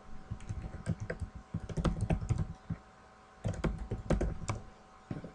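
Typing on a computer keyboard in three quick bursts of key clicks with short pauses between.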